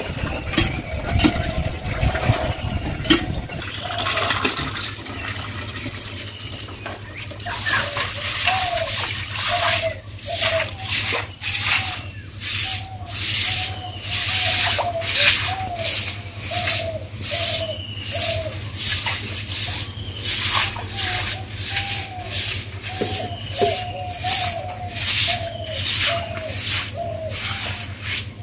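Regular rhythmic scraping or swishing strokes, roughly three every two seconds, beginning about seven seconds in and carrying on steadily. Before them there is a low rumble with a few clicks.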